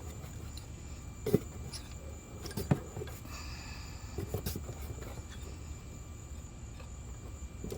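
A few scattered clicks and knocks of metal doorknob parts and hand tools being handled and worked, over a low steady hum.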